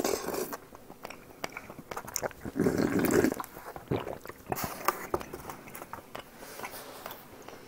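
Close-miked eating: chewing with wet mouth clicks, and a longer wet slurp from a bowl about three seconds in.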